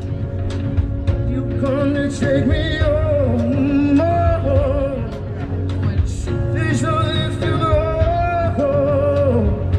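Live band music through an outdoor PA: a singer holding long, wavering notes over strummed guitars, a steady low bass and a regular beat.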